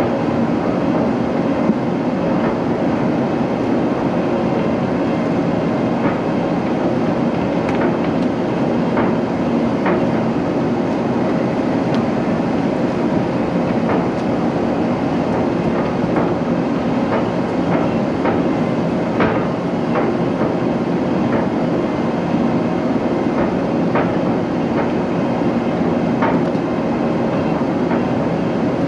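Diesel engine of a wheeled logging machine running steadily under way, with irregular sharp clanks and rattles from the machine jolting over slash and logs.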